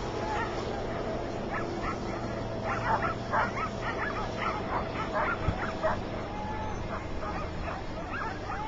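Many sled dogs yipping, yelping and whining excitedly, in short calls throughout, with one long drawn-out whine in the middle. A vehicle engine runs steadily underneath.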